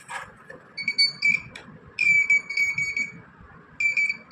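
Electronic alarm buzzer of an Arduino anti-snore detector sounding one high pitch, the alarm that signals detected snoring. It gives a few short beeps about a second in, then a longer tone, then starts again near the end.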